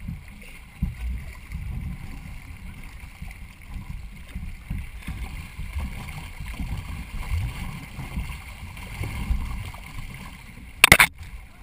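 Water rushing and splashing along a racing canoe as it is paddled, with wind rumbling on the camera's microphone. Near the end comes a loud, sharp double knock.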